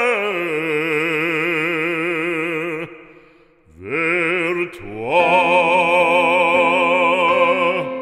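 Solo operatic singing of a French religious song: long held notes with wide vibrato, with a short break about three seconds in before the next long note.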